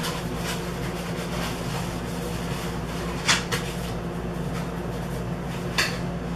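A rolled paper poster being handled and unrolled, with two short, sharp crinkles about three and six seconds in, over a steady low background hum.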